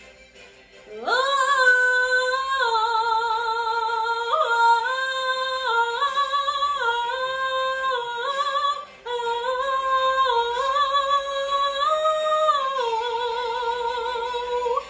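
A female voice singing a wordless "ah" vocalise. It swoops up into the first note about a second in, then holds long notes with vibrato that step up and down in pitch, with a short break for breath about two-thirds of the way through.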